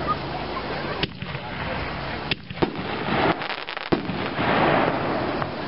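Brothers Brave New World reloadable artillery shells bursting overhead: several sharp bangs, spaced irregularly about a second apart.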